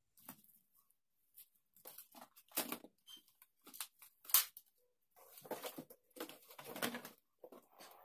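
Scattered handling noises: short rustles, taps and clicks, irregular and spaced apart, as hands move paper and small parts on the opened TV's chassis.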